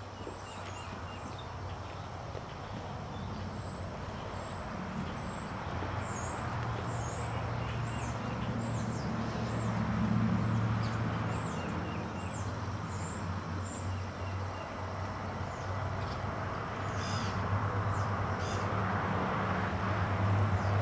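Small birds chirping, short high notes repeating about twice a second, over a steady low rumble.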